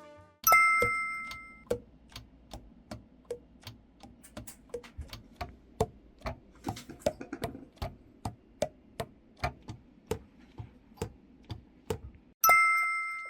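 Alto saxophone keys pressed one after another, the pads slapping shut on the tone holes in a run of short popping clicks, about two a second and varying in pitch. A single ringing ding sounds about half a second in and again near the end.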